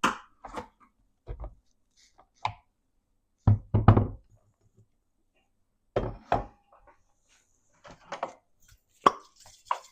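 Kitchen handling noises: a string of separate knocks and clunks as utensils and dishes are moved and set down on a counter, the heaviest clunks about halfway through.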